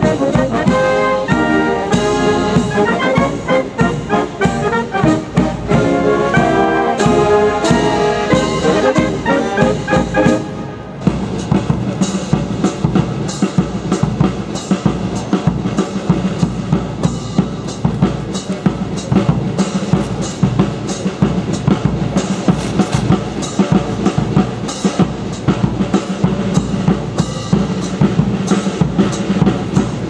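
Military band of clarinets and brass playing a march melody. About eleven seconds in the sound changes abruptly to a steady marching drum beat over a held low note.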